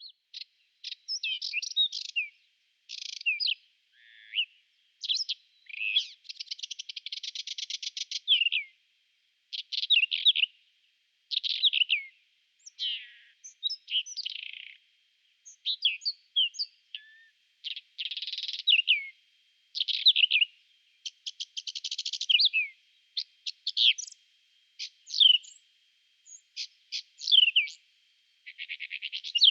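Whinchat singing: short, varied scratchy phrases with brief pauses between them, some of them rapid buzzy trills.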